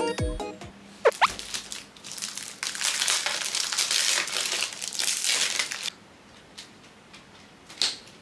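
Plastic packaging on a picture frame crinkling and rustling for about three seconds as the frame is unwrapped and taken apart, with a short rising tone about a second in and a light click near the end.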